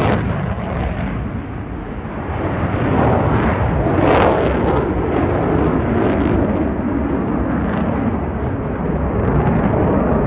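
Lockheed Martin F-22 Raptor's twin jet engines roaring in a pass overhead, a loud rumbling roar that swells to its loudest about four seconds in.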